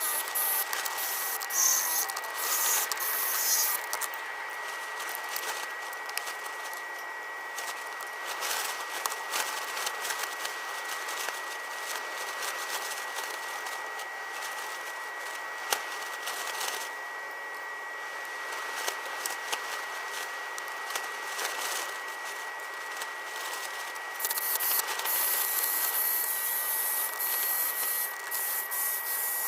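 Irregular scraping and rubbing strokes on a workpiece, louder at the start and again near the end, over a steady thin high tone.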